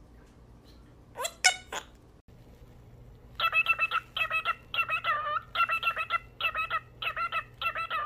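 A monk parakeet gives a few quick rising chirps. Then a cockatiel makes a steady run of short, warbling pitched calls, about two a second.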